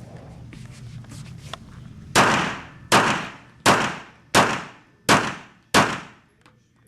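A competition handgun fires six shots, about 0.7 seconds apart, starting a couple of seconds in. Each shot is followed by a short echo. These are the final shots of the competitor's course of fire.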